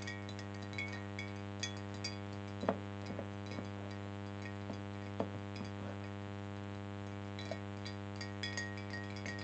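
A spoon stirring oil, water and food coloring in a glass, clinking against the glass at irregular moments, loudest about two and a half seconds in, over a steady low electrical hum.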